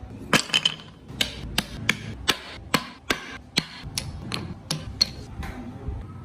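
Hand tool tapping on wood: a run of sharp, evenly paced taps, about two or three a second, stopping about five and a half seconds in.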